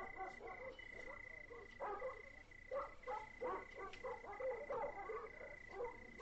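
A night chorus of frogs croaking: many short calls overlapping and repeating a few times a second. A steady high-pitched tone runs underneath.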